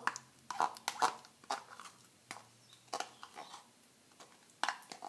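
Soft, wet hand-soap-and-shampoo slime being stirred with a marker in a small plastic cup: irregular wet squelches and clicks, a dozen or so, as the marker works through the slime and knocks the cup.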